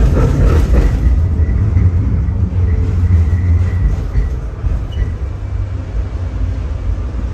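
Tram running along its rails, heard from inside the rear of the car: a steady low rumble that gets a little quieter after the first second.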